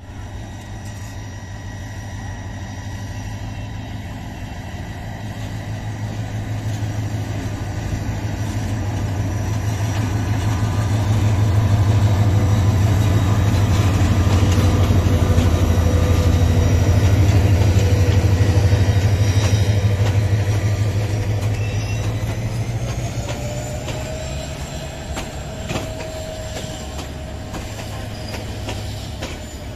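Diesel-electric locomotive hauling a passenger train past, its engine running with a heavy low throb that grows louder as it comes close and fades as it moves on. A thin rising squeal comes about two-thirds of the way through, and the coaches' wheels click over rail joints near the end.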